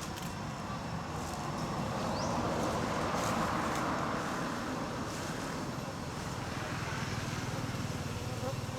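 Traffic noise from a passing road vehicle, swelling to its loudest about three seconds in and then easing off, over a steady low rumble.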